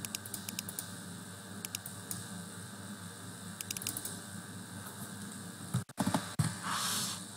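Computer keyboard and mouse clicks in three short runs of light, sharp taps as a value is typed into a field. About six seconds in comes a louder short thump, followed by a brief hiss.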